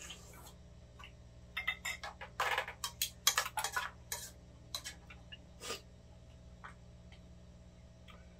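Chopsticks, spoons and a ladle clinking and scraping against metal cooking pans and small bowls as food is served: a quick run of clinks for a few seconds that then dies away.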